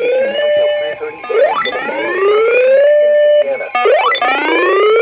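Electronic warning siren sounding a repeating whoop: each cycle is a tone that climbs, holds briefly at the top and drops, about every two and a half seconds.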